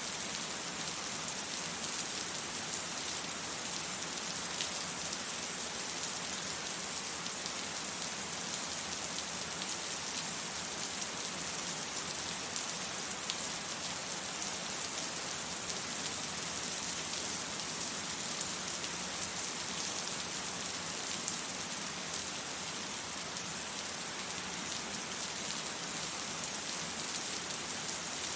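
Steady rain falling on hard surfaces, an even hiss with faint scattered drop ticks and no thunder.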